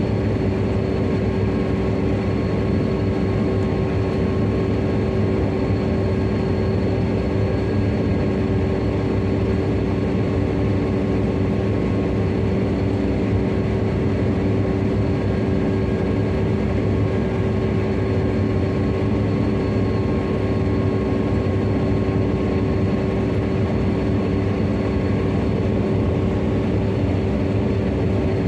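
New Holland CR7.90 combine harvester running steadily under load while harvesting soybeans: a constant engine and threshing rumble with a steady hum and a faint high whine held at one pitch throughout.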